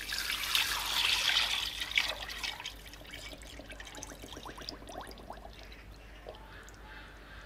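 Curing brine poured in a steady stream into a stainless steel bowl over a beef brisket. The splashing is loudest in the first two seconds or so, then turns quieter with small rising bubbly plinks as the bowl fills.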